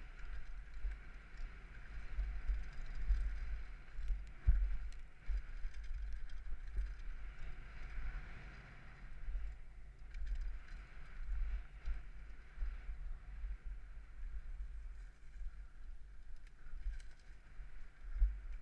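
Wind buffeting a helmet-mounted action camera's microphone during a fast downhill mountain bike descent on a dirt trail, a rough, gusting rumble. Over it run a steady high hiss and scattered small clicks and rattles from the bike over bumps.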